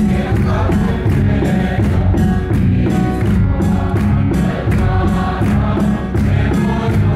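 A church congregation singing a hymn together in chorus, backed by beating drums, with a steady beat.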